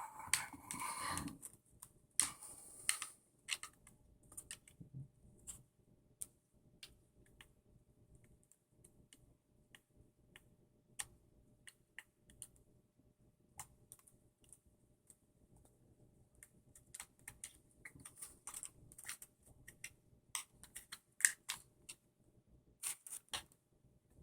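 Scattered light clicks and taps of a small screwdriver and screws on an RC buggy's chassis as the screws are worked loose, one of them stubborn. The clicks are busier near the end.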